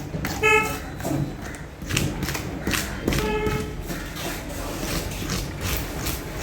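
A knife or cleaver chopping fish on a cutting block: a run of irregular knocks. Two short high-pitched tones sound about half a second and about three seconds in.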